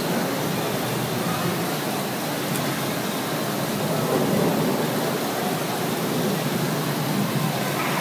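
Indoor floor fountain letting out a cloud of mist, with a steady rushing hiss that holds at one level throughout.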